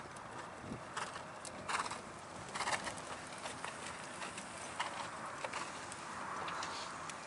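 Hoofbeats of a horse trotting on dirt arena footing, heard as scattered sharp knocks.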